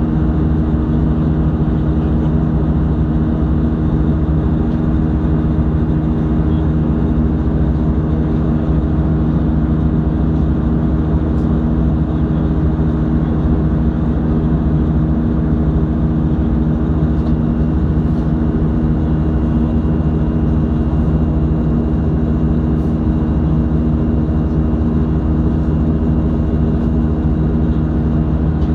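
Cabin noise of an Airbus A320 in flight: a steady, even rush of air with a constant multi-tone drone from its CFM56-5A1 turbofan engines.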